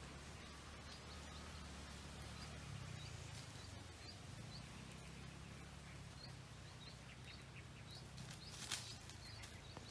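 Quiet forest ambience: a bird gives a series of short, high chirps, about two a second, over a low steady rumble. A single sharp click sounds near the end.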